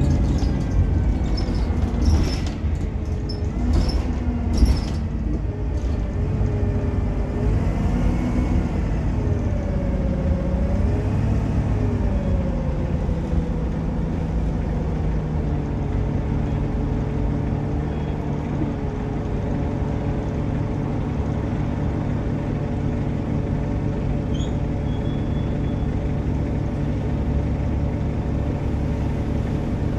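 Inside an Optare Solo M880 single-deck bus: the diesel engine's pitch rises and falls through the first half as the bus drives, with a few knocks and rattles early on. It then settles to a steady idle for the second half while the bus stands.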